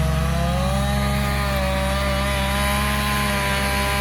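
Chainsaw running at high revs while cutting through storm-downed wood, its pitch sagging and recovering slightly under load.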